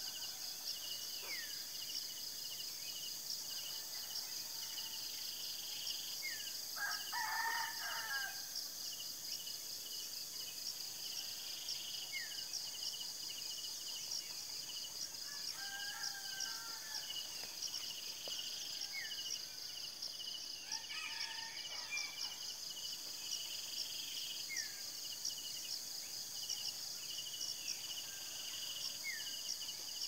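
Insects chirr steadily in fast, even pulses while a rooster crows three times, about seven, sixteen and twenty-one seconds in. A short falling call repeats every five or six seconds throughout.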